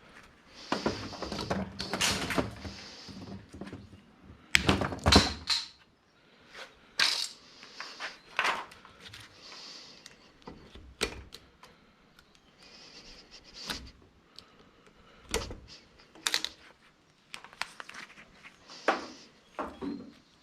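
Scrap wire and small metal pieces being handled, clinking and clicking irregularly, with a louder cluster of rattles about five seconds in.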